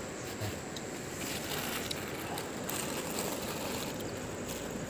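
Steady rush of a shallow river flowing over rocks, with a few faint rustles as a plastic bag is handled.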